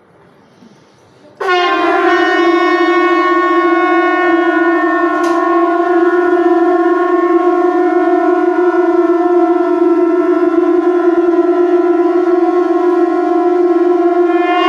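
Several conch shells (shankh) blown together in one long, steady note, starting suddenly about a second and a half in.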